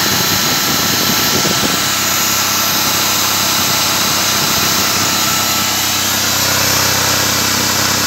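Electric drill running steadily at high speed, driving a homemade generator built from a fan motor at about 2000 rpm, with a steady whine over the motor noise.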